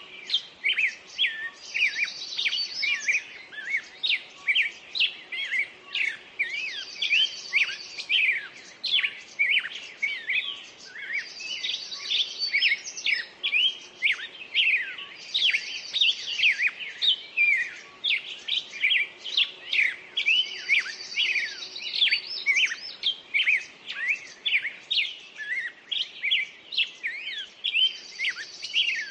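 Dawn chorus of several songbirds: a dense stream of short chirps and quick whistled sweeps, with one high trill repeating every four to five seconds.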